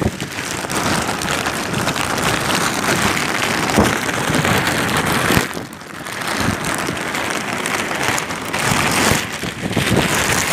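Typhoon wind and driving rain buffeting the microphone as a loud, steady rushing noise, dipping briefly about five and a half seconds in.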